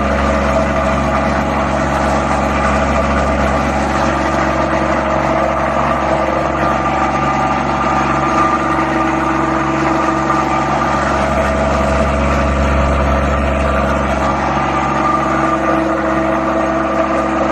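Plastic agglomerator running steadily: a loud, continuous machine hum with a strong low drone and steady whining tones over grinding noise.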